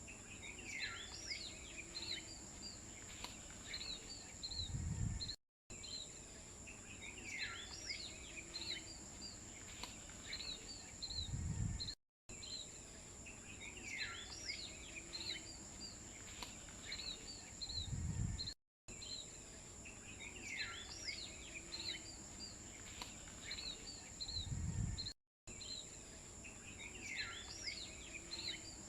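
A looped nature-ambience track: birds chirping and calling over a steady high hum, with a low rumble near the end of each loop. The same stretch repeats about every six and a half seconds, with a short dropout between repeats.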